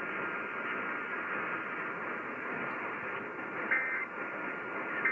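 AM radio static hiss with no programme audio. About three and a half seconds in comes a short warbling data burst, with a second one right at the end: the EAS end-of-message tones that close the test.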